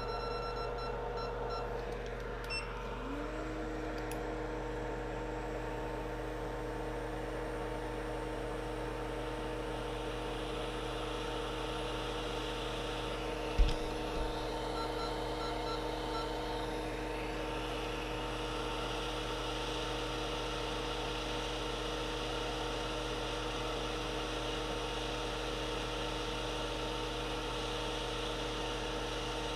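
Hot air rework station running with a steady hum and whine; a new tone comes in about three seconds in with a short upward glide, then holds steady. A single sharp knock about halfway through, and short faint beeps near the start and again just after the knock.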